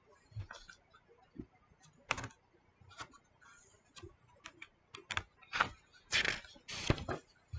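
A hardcover picture book's paper pages being handled: scattered light taps and clicks of fingers on the paper, then, from about five seconds in, louder rustling as a page is lifted and turned.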